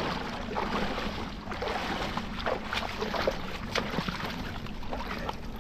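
Water splashing and sloshing in quick, irregular splashes as a cast net holding a big fish is worked in a shallow river.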